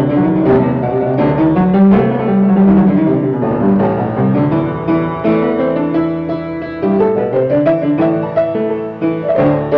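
Upright piano being played: a continuous flow of notes over held lower notes.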